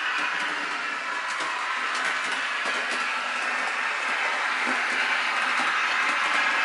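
Model VT 98 railbus running on the layout: the retrofitted sound decoder plays a steady diesel railbus running sound through a small speaker, over the whirr of the model's motor and occasional faint clicks of the wheels on the track.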